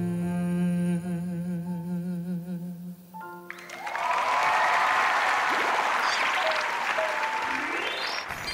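A male singer holds the final note of a ballad with vibrato over the band, ending about three seconds in, followed by applause for the rest. A short swooshing sound effect comes at the very end.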